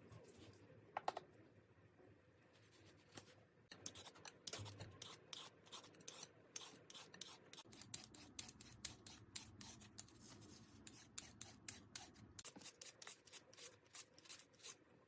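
Vegetable peeler scraping along a vegetable in quick repeated strokes, about three a second, faint, starting a few seconds in.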